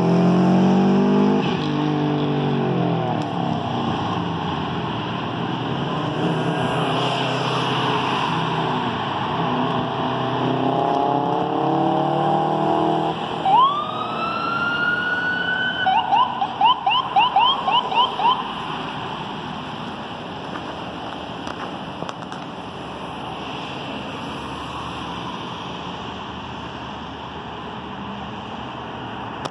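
Fire engine responding with warning devices over passing traffic. Low air horn blasts come first, then a siren winds up about halfway through and switches to a quick yelp for a couple of seconds. The sound then fades as the truck moves away.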